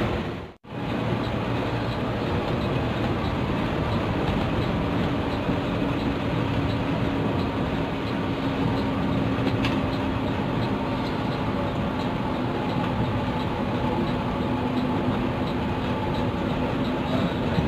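Steady running noise of an intercity coach on the move, heard from inside, with engine and road rumble at a constant level and a faint ticking about twice a second. The sound drops out briefly about half a second in.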